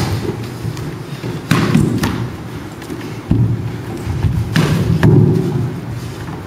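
Thuds and slaps of kickboxing strikes and footwork on a wooden floor, about half a dozen sharp hits that echo in a large hall.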